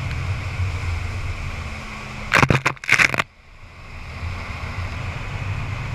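Motorboat running at speed while towing, heard from a camera at the stern: a steady engine rumble with rushing wake water and wind on the microphone. Midway through, a few loud rough hits strike the microphone as spray lands on the camera, then the sound dips briefly and builds back up.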